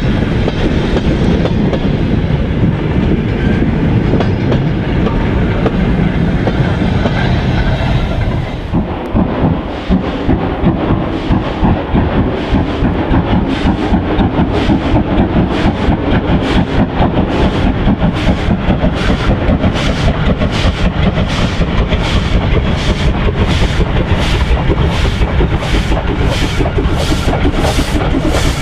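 Freight wagons rolling past, wheels clicking and rumbling over the rail joints. After about nine seconds this gives way to the regular exhaust chuffs of LNER N7 No. 69621, a 0-6-2T steam tank engine, working a freight train; the chuffs grow louder as it approaches.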